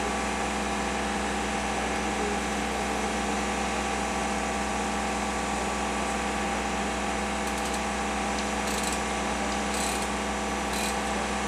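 Engine running steadily under the work platform, with a few short ratcheting clicks from a lever chain hoist being worked in the second half.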